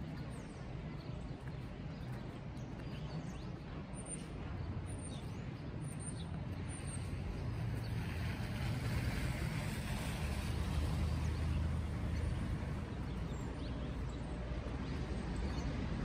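City street traffic: a steady low rumble of vehicles, swelling about halfway through as a vehicle passes on the wet, slushy street. A few faint high chirps show up a few seconds in.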